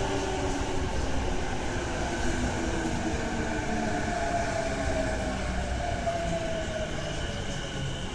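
Keihin-Tohoku Line E233 series electric train's inverter and traction motor whine as it brakes into the platform, several tones gliding and stepping downward as it slows, over a low rolling rumble.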